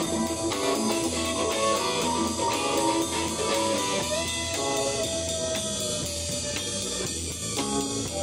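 Live band music: an electric keyboard playing a melodic line over a drum kit, with one long held note about halfway through.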